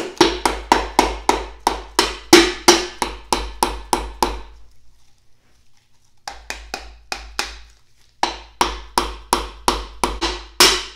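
Light, rapid taps of the handle end of an orange mallet on a piston crown, driving the piston through a ring compressor into a cylinder bore of a Datsun L28 inline-six block. The taps come about three a second in three runs, with two short pauses between them.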